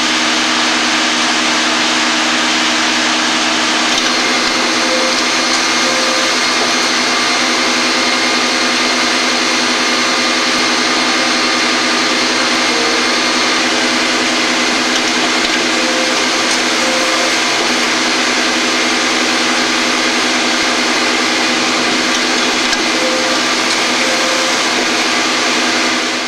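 Hydromat EPIC R/T 16-station CNC rotary transfer machine running in the cut on brass valve parts: a steady mechanical whir of tool spindles and machining with a constant hum and a higher whine. The sound shifts slightly about four seconds in.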